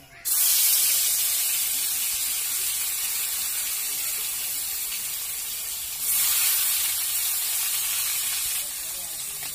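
Pieces of lata fish dropped into hot oil in an aluminium kadai, setting off a sudden loud sizzle. The sizzle surges again about six seconds in as more pieces go in, then eases near the end.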